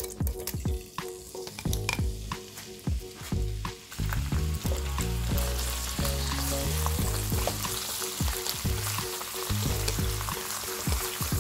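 Diced pork frying in hot oil in a nonstick frying pan while being stirred with chopsticks. Sharp clicks over the first few seconds as the pieces go in, then a sizzle that swells from about four seconds in and holds.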